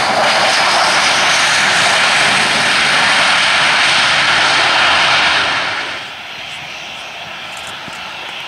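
Boeing 737-800's CFM56-7B jet engines running at high power on the runway: a loud, steady jet noise. About six seconds in it drops sharply to a quieter, steady engine sound.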